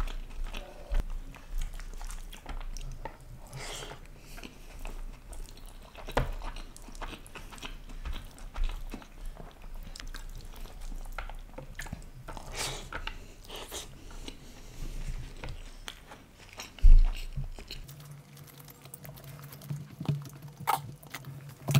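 Close-miked mouth sounds of chewing and smacking on chicken dum biryani eaten by hand, with irregular wet clicks. A dull thump sounds once near the end.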